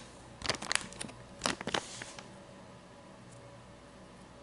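Glossy plastic cigarillo pouch (4K's Piña Colada) crinkling as it is handled close to the microphone, in two short spells within the first two seconds.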